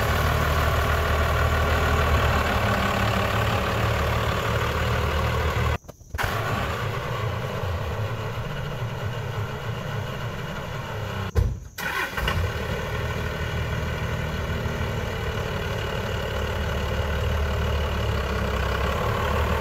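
A Dodge Ram pickup's engine runs steadily at low speed as the truck, loaded with a camper, creeps forward. The sound cuts out briefly twice, about six and eleven seconds in.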